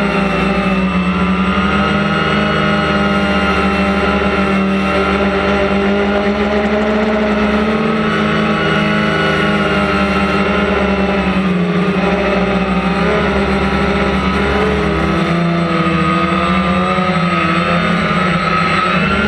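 DJI Phantom quadcopter's motors and propellers buzzing steadily, their pitches drifting up and down together several times as the motor speeds change.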